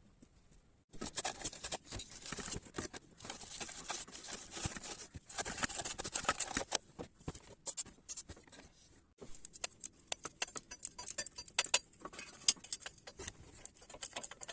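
Irregular clattering and clicking of scooter body parts and hardware being handled while the plastic cover and storage box are taken off, with a short pause a little past halfway.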